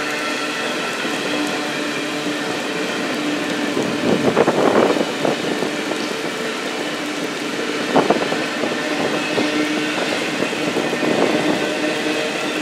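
A train rolling along the rails with a steady hum and a few bursts of wheel-and-car clatter.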